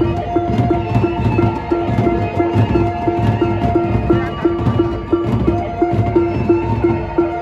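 Sasak gendang beleq ensemble playing: large double-headed barrel drums beaten with hand and stick, with clashing cymbals, over a steady pitched beat of about three strokes a second.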